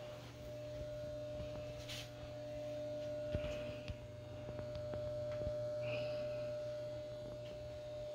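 Steady electrical hum with a few faint clicks and taps.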